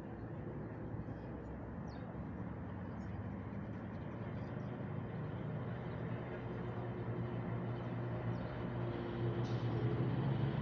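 An engine running steadily, growing louder toward the end, with a few faint chirps above it.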